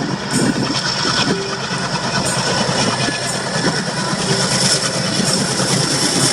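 Alco WDM3A diesel locomotive running with a train, a steady rumble. A steady high whine sits above it, with faint clicks about once a second.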